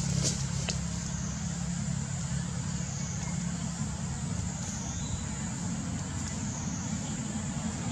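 Steady low rumble with a high, even whine above it that dips briefly about every two seconds.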